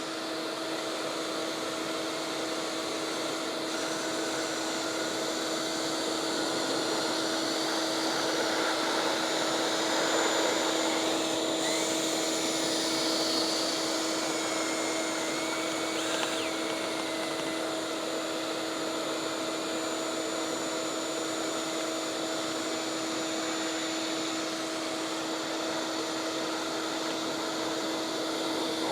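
Shop vacuum running steadily with a constant hum, drawing lint out of a clothes dryer vent duct.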